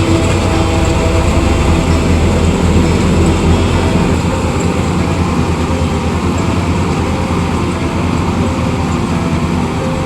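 Harvesting machine engine running steadily under load, a loud, even mechanical drone with a low hum.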